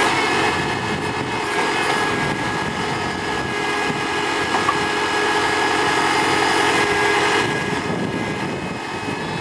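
Tafe tractor's diesel engine running steadily under load as it powers the backhoe's hydraulics while the bucket digs and swings soil over to a trailer. The engine note changes about seven and a half seconds in.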